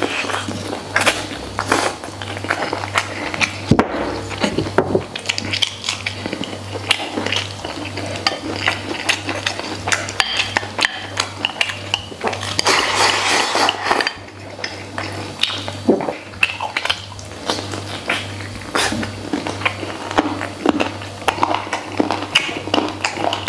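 Eating with chopsticks from a ceramic bowl: repeated clicks and taps of the chopsticks on the bowl, with chewing of pork ribs and rice. About halfway through comes a longer stretch of scraping as rice is pushed from the bowl's rim into the mouth.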